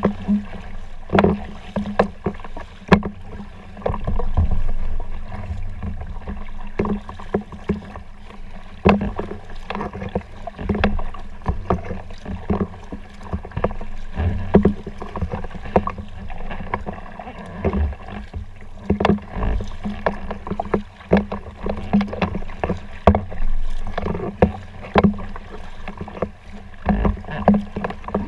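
Paddling a folding kayak: paddle strokes dipping and splashing in the water, with irregular sharp knocks and taps, about one or two a second.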